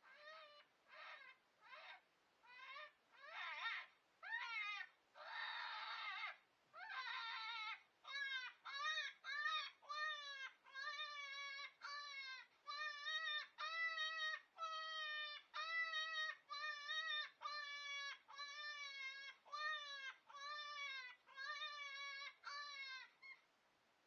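FoxPro electronic predator caller playing its Lightning Jack jackrabbit-distress sound: a string of shrill, squalling distress cries. They are ragged and raspy at first, then settle after about eight seconds into a steady run of wavering cries, about two a second.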